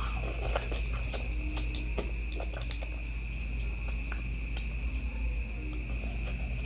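Steady high-pitched insect chirring with scattered small clicks and taps over a low hum.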